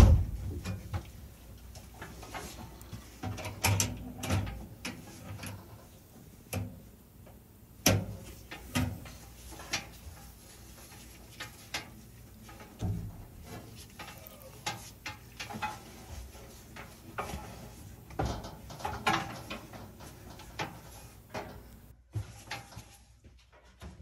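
Irregular clicks, taps and light knocks from hands working on a dryer's wiring inside its sheet-metal cabinet: test probes and wire connectors being handled while circuits are checked for continuity. A sharp knock comes right at the start, and further clusters of clicks follow every few seconds.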